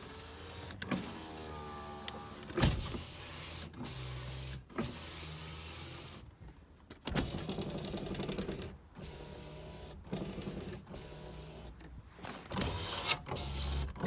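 A 1998 Nissan Altima's power window motors run the glass up and down several times, each run starting and stopping with a click. The windows are working normally.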